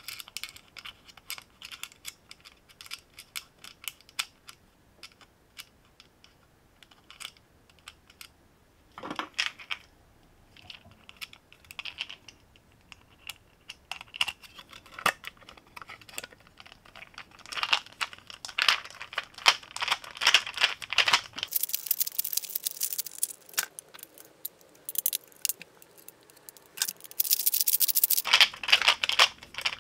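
Small clicks and scrapes of M4 machine screws being turned by hand and with a screwdriver to fasten a small synchronous motor to a 3D-printed plastic plate. Scattered clicks, with two longer runs of quick clicking in the second half.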